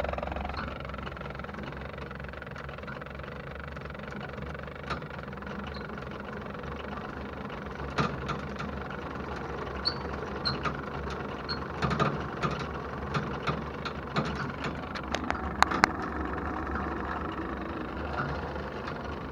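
Pickup truck engine idling steadily, with a few sharp clicks and knocks from the rigging: one about eight seconds in, one about twelve seconds in, and a quick cluster near sixteen seconds.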